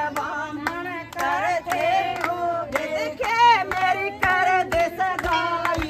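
Women singing a Hindu devotional bhajan, with steady hand claps keeping time.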